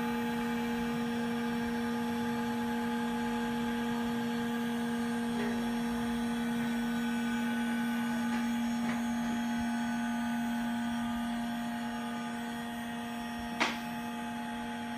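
Latex mechanical stability tester's high-speed stirrer motor running at about 14,000 rpm, a steady, even whine with a strong low tone and several higher tones. A single sharp click sounds near the end.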